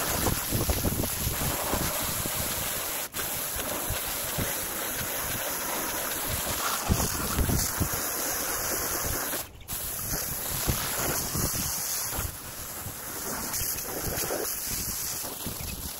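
Water from a garden hose's pistol-grip spray nozzle hitting wooden fence boards, a steady hiss and splatter as cleaner is rinsed off the wood. The spray drops out briefly twice. Wind buffets the microphone throughout.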